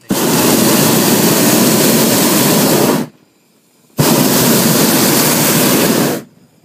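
A hot air balloon's propane burner firing in two blasts, each a steady roar that starts and cuts off suddenly: one of about three seconds, then after a short pause one of about two seconds, heard up close from inside the basket.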